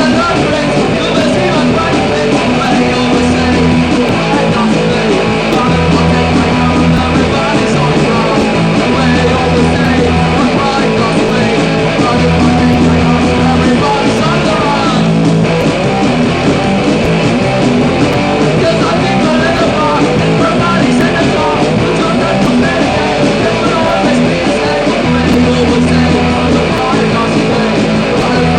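Punk rock song played by a band: electric guitar and bass over drums, with a singing voice. The bass repeats the same pattern of notes throughout.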